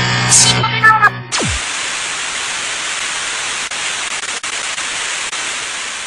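Music breaks off about a second in with a quick falling tone. A steady static hiss follows and begins to fade out near the end.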